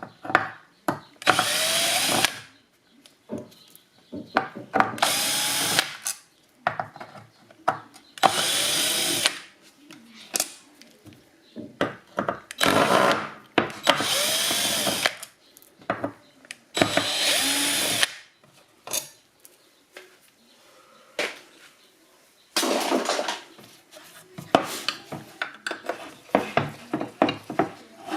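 Power drill running in about six short bursts of a second or so, each spinning up and winding down, with clicks and handling noise between, while the casing of a BMW DME engine control unit is being opened. In the last few seconds there is denser scraping and rattling of parts.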